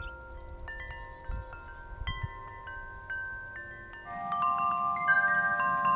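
Tubular metal wind chime ringing, its tubes struck again and again so that several notes ring on and overlap; the ringing grows fuller and louder about four seconds in.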